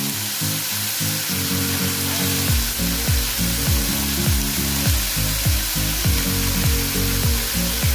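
Pork tenderloin medallions sizzling as they sear in olive oil in a frying pan. Background music with a steady kick-drum beat and bass runs under the sizzle, fuller from a couple of seconds in.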